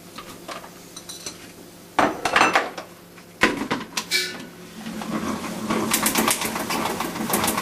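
Plastic salad spinner: a few knocks and clatters as the basket and lid are fitted, then from about five seconds in the spinner whirring with a rapid run of clicks as its knob is turned to spin the washed lettuce dry.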